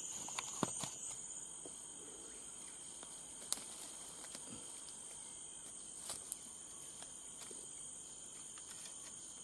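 Steady high-pitched drone of insects in tropical forest undergrowth. A few short, sharp clicks sound over it: several in the first second, then single ones about three and a half and six seconds in.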